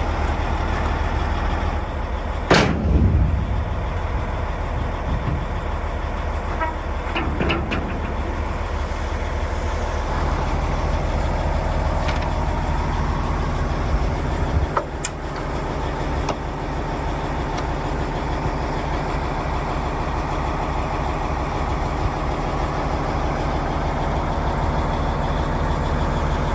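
Heavy diesel truck engine running steadily with a regular low pulse, with a sharp knock about two and a half seconds in and another around fifteen seconds in.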